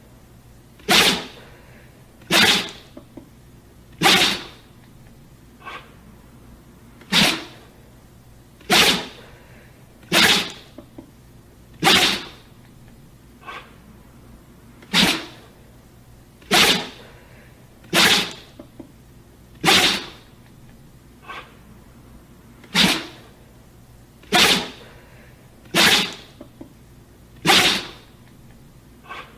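A dog sneezing again and again, a sharp burst about every one and a half seconds, with a few fainter, shorter bursts between some of them.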